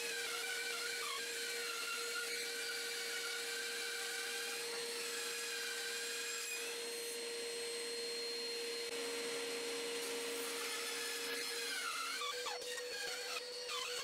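Metabo BAS 261 Precision band saw, with its induction motor, running as its blade resaws a pine 2x4: a steady motor hum under a cutting whine that wavers in pitch as the board is fed. The sound shifts briefly near the end.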